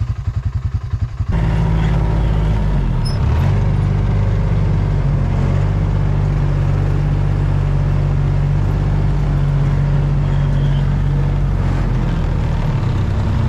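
A vehicle engine idles with a pulsing beat, then about a second in it picks up and runs steadily and louder, its pitch shifting a couple of times as it is driven.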